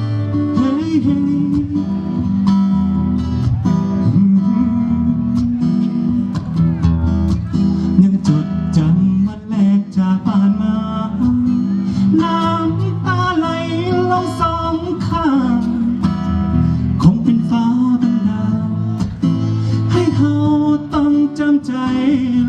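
Acoustic guitar strumming the introduction to a song, with a melody line wavering up and down over it about halfway through.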